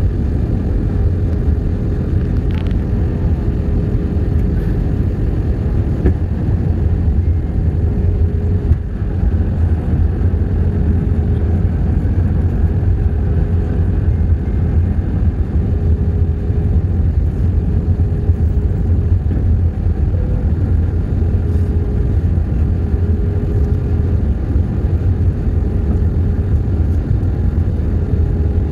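Steady rumble of a jet airliner's cabin in flight: turbofan engine and airflow noise heard from a window seat over the wing, with a faint steady hum above the rumble.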